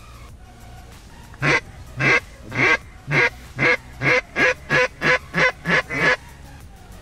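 Mallard duck call blown by a hunter: about a dozen loud hen quacks starting about a second and a half in, each shorter and quicker than the last, the urgent run used to call in ducks.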